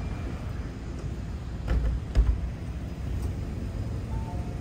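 Street ambience: a steady low rumble of road traffic, with two heavy thumps about two seconds in.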